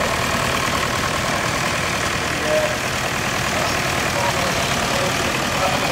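Engine of a vintage grey Ferguson tractor running steadily at low speed as it drives past, towing a tine cultivator.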